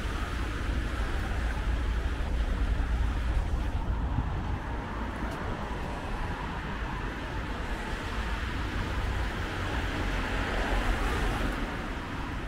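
Road traffic on a city street: passing cars make a steady rumble of engines and tyres.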